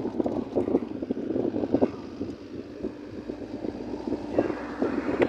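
Car driving along a road: steady engine and road noise with frequent irregular small knocks and rattles, and wind on the microphone.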